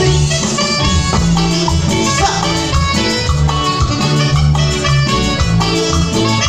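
Cumbia band playing live through a PA, with electric guitar, keyboard, a low bass beat and percussion.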